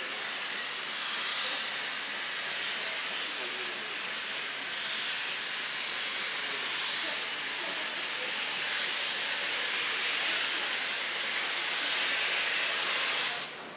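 Steam locomotive 18 201 letting off steam: a steady hiss that cuts off suddenly near the end.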